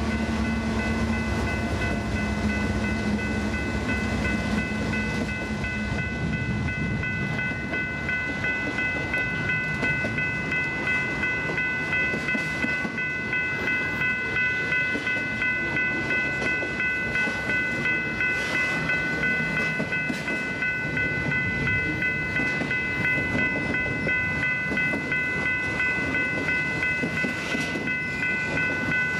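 Freight train rolling past: a low locomotive engine drone fades over the first several seconds, then the cars rumble and clatter over the rails. A steady high-pitched ringing tone runs under it all.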